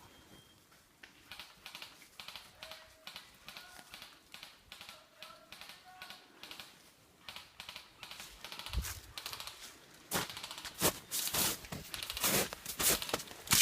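Footsteps at a walking pace, about two a second, scuffing and crackling over dry ground cover, much louder and busier from about ten seconds in.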